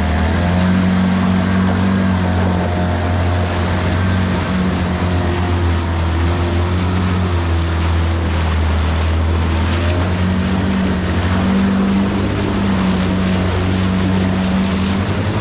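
Outboard boat motors running steadily at speed, a continuous engine drone with a slight waver in pitch, over the rushing of rapids and the boats' wake.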